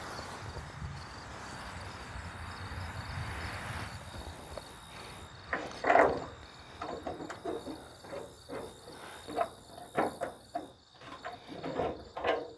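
A steady high insect trill, typical of crickets, runs under a first few seconds of outdoor noise. From about halfway, an irregular run of light knocks and clicks comes from hand work on a truck's body panels, the loudest about six seconds in.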